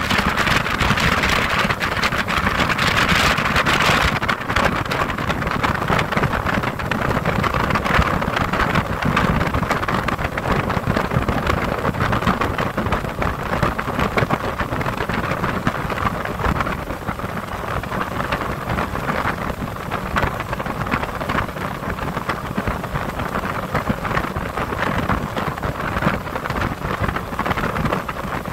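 Motorboat under way: a steady rush of water along the hull and engine noise, with wind on the microphone. The hiss is strongest for the first few seconds, then eases slightly.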